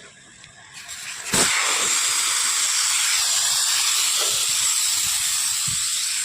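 Air rushing out in a loud, steady hiss that starts about a second in.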